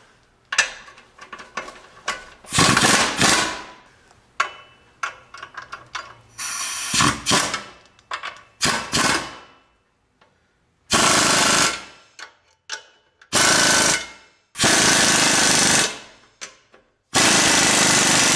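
Pneumatic air wrench running in repeated bursts, tightening the U-bolt clamp nuts on a new exhaust muffler. There are several short bursts in the first half, then four longer runs of one to two seconds each.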